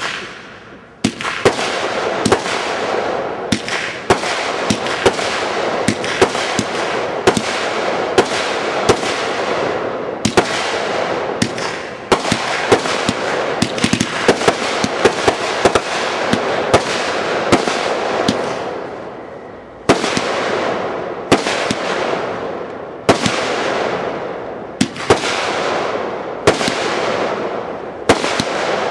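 Aerial consumer fireworks firing in quick succession: a dense, continuous crackle with many sharp pops and bangs over it. It comes in waves of a few seconds that fade away and then start again.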